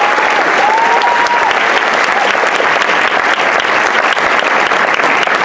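Large audience applauding steadily, with a few held cheers carrying over the clapping in the first second or so.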